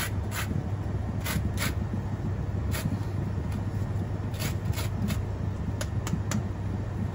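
Orange peel being rubbed over a flat metal hand grater: irregular rasping strokes, sometimes several in quick succession. A steady low hum runs underneath.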